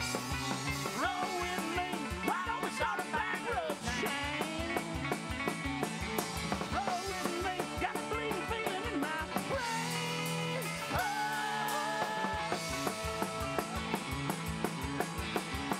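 Live band playing an upbeat rock and roll song on electric guitars, upright bass and drum kit, with a steady drum beat and bending lead notes.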